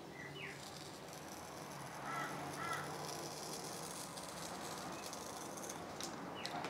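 Faint scratching of a craft knife blade drawn through a paper journal page. Birds chirp outside, a pair of short calls about two seconds in and more near the end.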